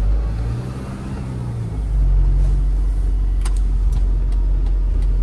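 Truck engine running under load while driving, heard from the cab: its pitch rises gently in the first second or so, then a heavier, louder low rumble sets in about two seconds in. A few sharp clicks sound around the middle.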